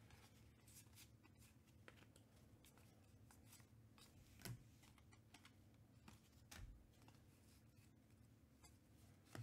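Faint handling of trading cards: quiet sliding and small clicks, with two slightly louder taps about four and a half and six and a half seconds in.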